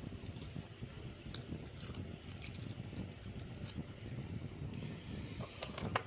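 Small metal lock parts clicking and tapping as a mortise lock cylinder is handled and taken apart, with a quick cluster of sharper clicks near the end, over a steady low background rumble.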